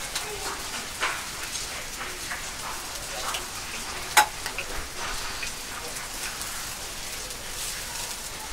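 Chicken neck (seseri) sizzling on a small wood-fired firebox grill, a steady crackly hiss. Light clicks of chopsticks against the metal grill and cup sound over it, the sharpest about four seconds in.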